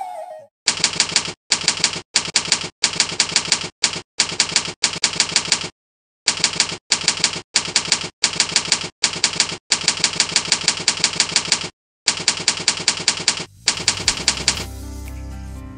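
Typewriter keystroke sound effect, rapid clacks in bursts with short pauses between them, typing out on-screen text. Near the end the typing stops and soft music comes in.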